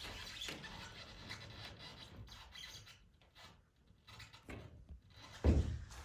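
Scraping and rubbing on the greenhouse roof panels as clear roof-patch sealant is spread along a leaking seam, steady for about three seconds and then fainter, with one low thump near the end.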